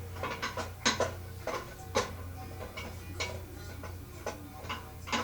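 A utensil clacking and scraping against a cooking pan as sliced chicken is stirred in ghee: irregular sharp knocks, a dozen or so, over a steady low hum.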